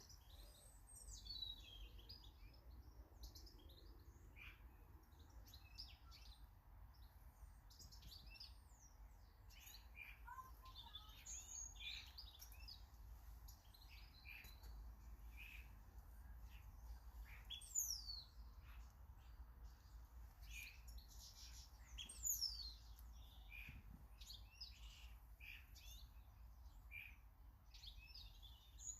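Small garden birds chirping and calling faintly, many short high notes overlapping, with two louder high notes sliding down in pitch about 18 and 22 seconds in.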